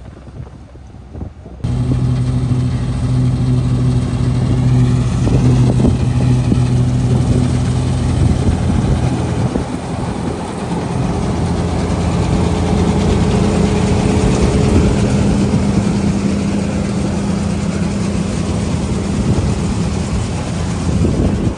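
Combine harvester's diesel engine and threshing machinery running steadily, cutting in abruptly about a second and a half in; the engine note changes about halfway through.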